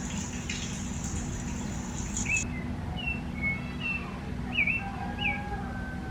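Small birds chirping: a run of short, high chirps starting about two seconds in, some dipping and rising sharply, then fainter drawn-out whistled notes near the end, over a steady low hum.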